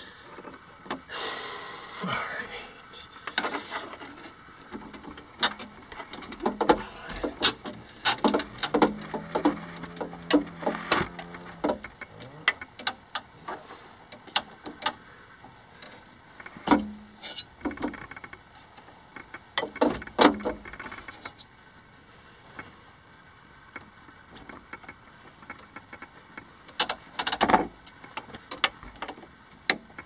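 Steel roller chains clinking and rattling against sprockets and the metal frame as they are worked onto the sprockets by hand: irregular clusters of metallic clicks and clanks, busiest in the first half and with a loud clatter near the end.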